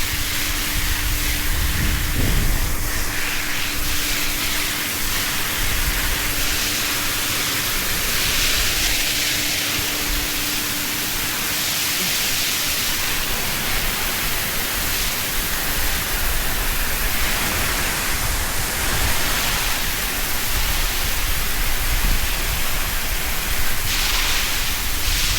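Dairy shed wash-down hose spraying water at full force, a steady rushing hiss that swells and fades as the jet moves. A faint steady hum runs under it for about the first twelve seconds.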